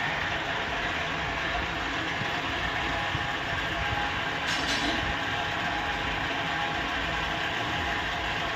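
Metal lathe running in a workshop: a steady mechanical drone with a faint whine, and a brief hiss about four and a half seconds in.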